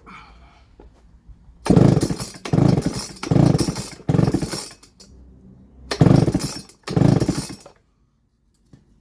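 Baumr-AG SX92 chainsaw being pull-started: six hard pulls on the recoil starter, four in quick succession, a short pause, then two more, the engine turning over without settling into a run. The saw is hard to start, and the owner suspects a weak spark from the ignition coil.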